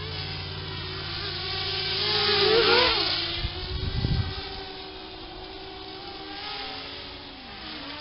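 RG210 racing quadcopter's brushless motors and propellers whining, the pitch bending up and down with the throttle. There is a louder surge with rising pitch about two and a half seconds in, then a brief low rumble around four seconds in.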